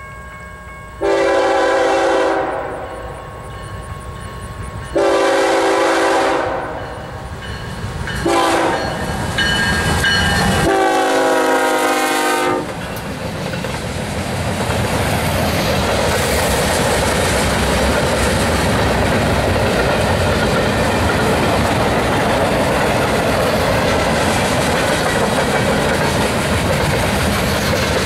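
BNSF freight train's lead GE ES44DC locomotive sounding its air horn in the grade-crossing pattern: two long blasts, a short one, then a long one. After the horn stops, the locomotives and a string of freight cars roll past close by in a steady loud rumble, with clickety-clack of the wheels over the rail joints.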